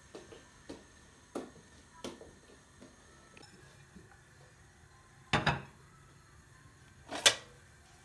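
Kitchenware being handled: a series of light clicks and knocks, then two louder knocks, the first about five seconds in and the second near the end.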